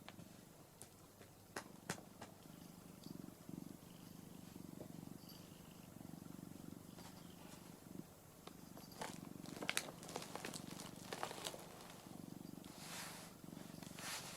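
Orange tabby cat purring, a low purr coming and going with its breaths. Soft rustles and clicks come in over the second half.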